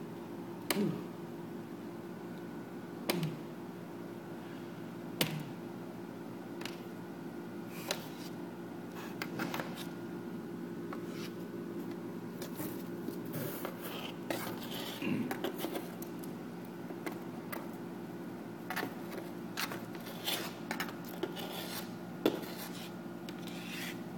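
Orange plastic stick tapping and scraping against a cardboard box and paper, in irregular clicks and scratches that come more often in the second half, over a steady low hum.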